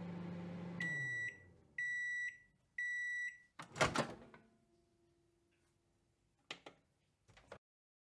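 Microwave oven finishing its cycle: the running hum winds down, three beeps about a second apart signal that the timer has reached zero, then the door opens with a loud clunk. Two short clicks follow near the end.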